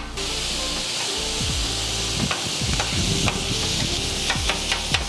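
Chopped pastrami and turkey sizzling steadily on a hot steel griddle, with a few sharp clacks of a chopper blade striking the griddle top near the end.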